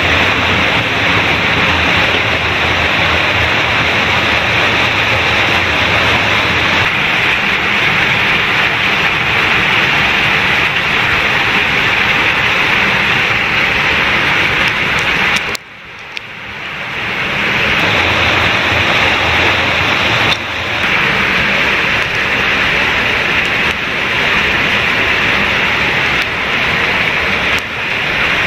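Loud, steady rush of water. It cuts out briefly about halfway through and fades back in.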